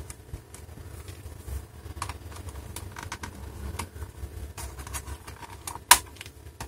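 Scattered light clicks and taps of a screwdriver and fingertips working at the plastic access cover on the underside of a Dell Inspiron 14z laptop, which is stiff to remove, with one sharper click about six seconds in, over a low steady hum.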